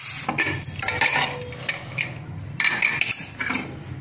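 Metal clatter and scraping as a pressure cooker lid is twisted loose and lifted off: a run of irregular clinks and knocks against the pot's rim.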